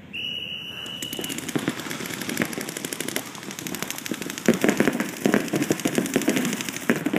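Paintball markers firing in rapid strings, many shots a second, growing louder about halfway through. A steady high tone about a second long opens it.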